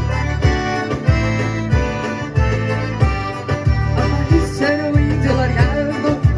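Accordion playing a lively dance tune with held chords over a steady bass beat, about one and a half beats a second.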